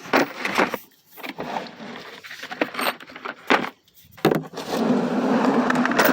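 Metal hand tools (ratchets, sockets, extensions) clinking and rattling as they are rummaged out of the bottom of a toolbox. There are a few separate clanks, then a continuous scraping rattle over the last second and a half.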